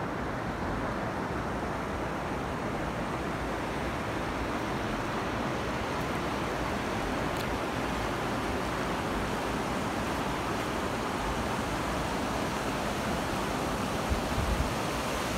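Steady rush of the Virgin River running over shallow rocky riffles, with a few brief low thumps near the end.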